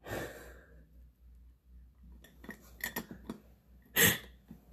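A breathy exhale at the start, then a few light clicks and clinks of small makeup items being handled, and a short breathy laugh about four seconds in, which is the loudest sound.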